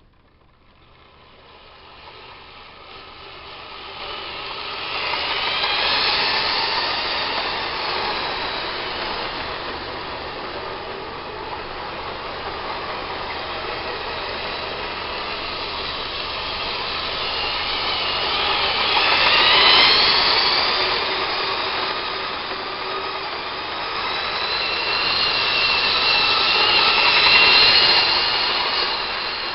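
Lima O-gauge model trains running on a floor layout: electric motor whine and wheels rolling on the rails. It builds up from near silence over the first few seconds, then swells and fades as the trains pass close, three times. The whine glides up and down in pitch, most plainly about twenty seconds in.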